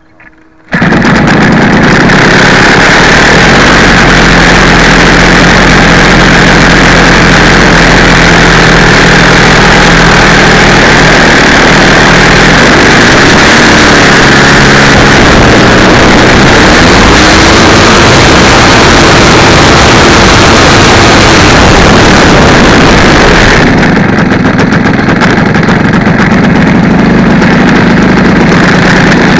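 Two-stroke gasoline engine of a 30% scale Yak 54 RC aeroplane running steadily on the ground, very loud and harsh, heard from a camera strapped to the wing. It comes in abruptly about a second in, and the sound dulls and eases slightly about five seconds before the end.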